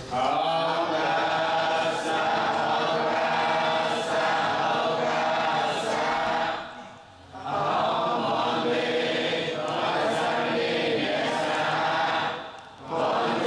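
Buddhist devotional chant sung by many voices together in unison, in long sustained lines. It breaks off briefly about seven seconds in and again near the end, as the chanters pause for breath.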